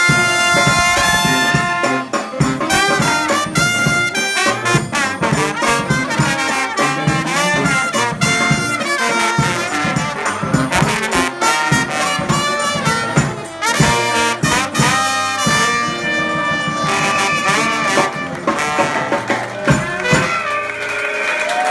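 New Orleans-style brass band playing loudly: horns over a steady beat, with long held notes near the end.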